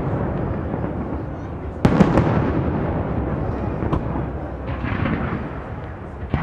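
Aerial firework shells bursting: a sharp bang about two seconds in, followed by a long rumbling echo that slowly fades. A softer crackle comes near the end, and another bang right at the end.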